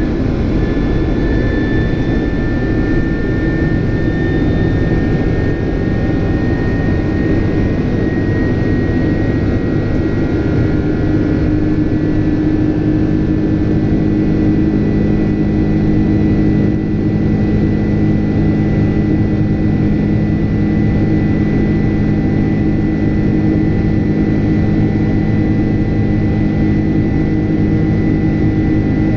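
General Electric CF6 turbofan engines of a Boeing 767 heard from inside the cabin: a steady, loud drone with a high fan whine that rises slightly in pitch over the first ten seconds, then holds steady.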